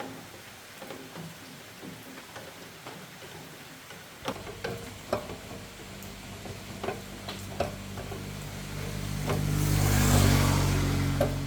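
An electric hair clipper is switched on about four seconds in after a few light clicks and taps, and runs with a steady mains hum. Its buzz swells louder near the end.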